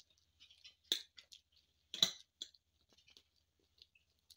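A metal fork mashing bananas on a serving platter, its tines clicking and scraping against the plate, with two sharper clicks about one and two seconds in.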